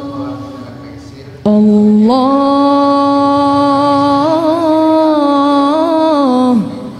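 A single voice singing a slow Arabic devotional song, unaccompanied: a held note fades out, a new long note begins about a second and a half in and is held with wavering ornaments, then slides downward near the end.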